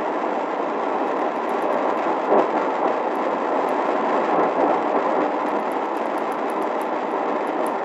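Sangean ATS-909X2 shortwave radio's speaker giving out a steady hiss of static as it is tuned in AM mode across the 20-metre amateur band near 14.2 MHz, with no voice coming through.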